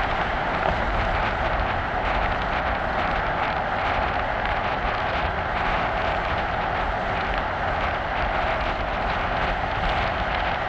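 Steady road rumble and hiss of a moving car, keeping an even level throughout.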